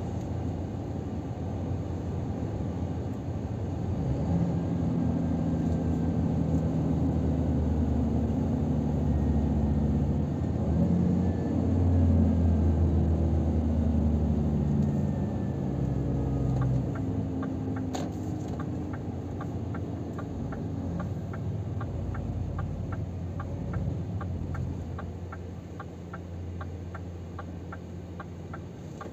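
Diesel engine and road noise of a Scania R500 truck heard inside the cab, the engine note getting louder and changing pitch in the first half as it pulls, then easing off as the truck slows. From a little past halfway, the turn indicator ticks steadily, about two to three ticks a second, with a single sharper click soon after it starts.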